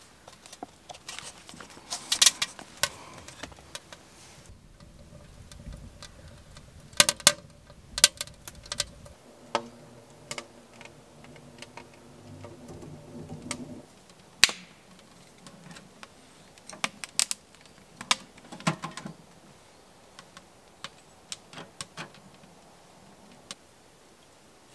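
Irregular sharp clicks and ticks, some in quick clusters, over a quiet background, with a faint steady hum of several tones for a few seconds in the middle.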